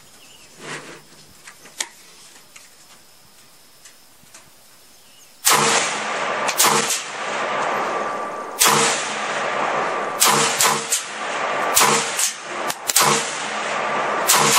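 PTR-91 roller-delayed blowback rifle in 7.62×51 (.308) firing a rapid string of semi-automatic shots in a magazine dump. The first shot comes about five and a half seconds in, and each report trails off into the next. Before that there are only a few faint pops.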